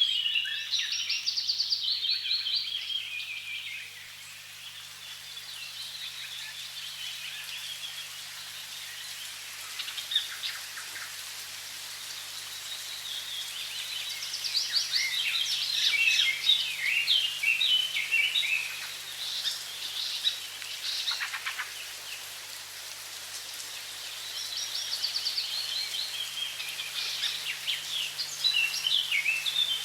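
Birds singing in quick, twittering trills and chirps over a steady rush of running water; the song comes in spells near the start, in the middle and near the end.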